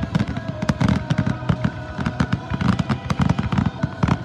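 Fireworks display firing a rapid, continuous barrage: overlapping booms and sharp cracks, many per second, over a low rumble.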